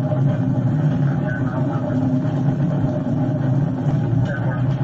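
A police car's engine and tyre noise at highway speed, a steady drone heard from inside the car.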